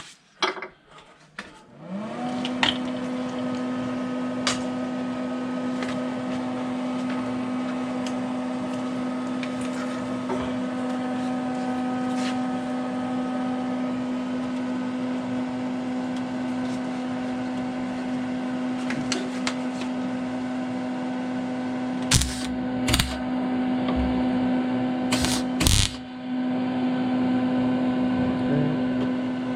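An electric motor spins up about two seconds in and runs with a steady hum, with a few sharp clicks and knocks near the end.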